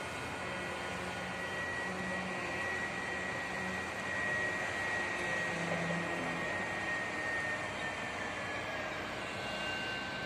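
Construction-site ambience: a steady rushing hiss of distant machinery with a thin high whine that slides slightly lower about eight seconds in.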